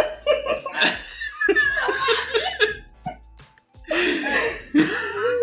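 Voices laughing over background music, with a short lull about three and a half seconds in.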